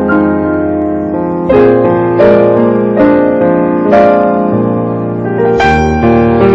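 Slow background piano music: single notes and chords struck about once a second, each left ringing.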